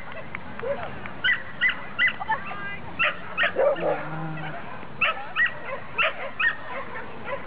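A beagle barking repeatedly in short, high yaps, often two in quick succession, with a person's voice briefly in the middle.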